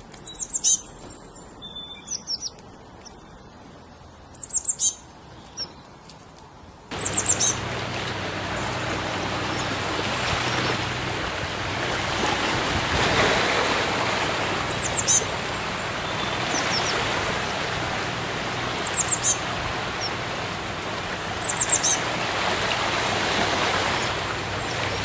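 Small birds chirping in short, high, quick groups of notes, repeated every few seconds. About seven seconds in, a steady rushing noise comes in beneath the chirps.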